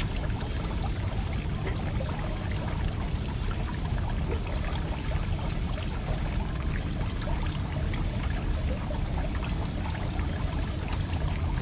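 Steady pouring and trickling of water over a constant low rumble.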